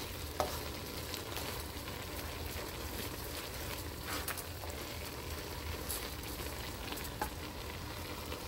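Stir-fried noodles, cabbage and shrimp sizzling steadily in a wok with a little bubbling sauce as a slotted spatula tosses them, with a few soft clicks of the spatula against the pan.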